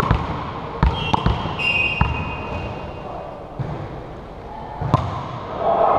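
A volleyball thumping on a hardwood gym floor, several scattered knocks in the first two seconds and a sharper hit about five seconds in, with brief sneaker squeaks on the court.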